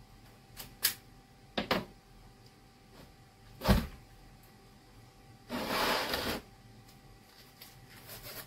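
Hand-tool handling on a workbench: a few sharp clicks from a red-handled wire cutter working on hookup wire, then a loud knock as a tool is set down on the bench, and about a second of noisy handling a little later.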